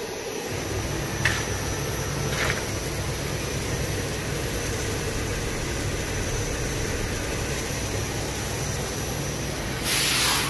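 A 55 mm blown film extrusion machine running: a steady drone and rush of air from its motors and air-ring cooling blower. Two short clicks come about one and two and a half seconds in, and a brief louder burst of hiss comes near the end.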